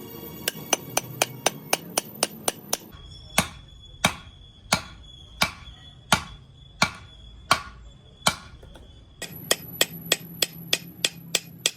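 Hammer blows on metal in rhythmic series: a quick run of about five strikes a second, then slower, heavier single blows about two-thirds of a second apart, then another quick run near the end.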